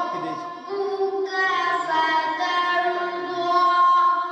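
A boy's voice singing alone in long, held, ornamented notes, with short breaths between phrases.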